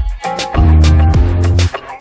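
Background music with a steady beat and bass notes.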